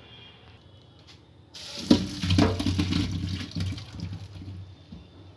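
Hot turmeric water and parboiled potato chunks poured from a pan into a plastic colander in a steel sink, splashing and draining. It starts suddenly about one and a half seconds in and tails off near the end.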